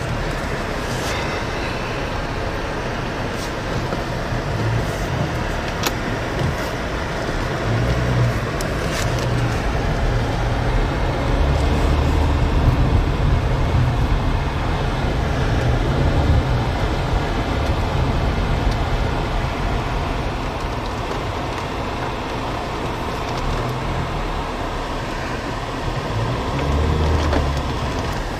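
Strong storm wind gusting against a phone microphone: a steady rushing noise with a heavy low buffeting rumble that swells in the middle and again near the end. A few sharp clicks come in the first ten seconds.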